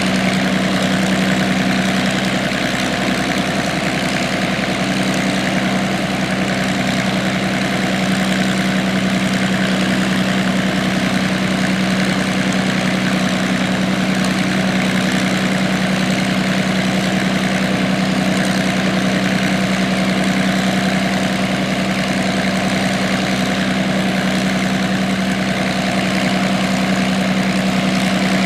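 Allison V-1710 V12 engine of an IL-2 Sturmovik, taken from a P-38, running steadily at idle on the ground with its propeller turning. A strong, even hum with no change in speed.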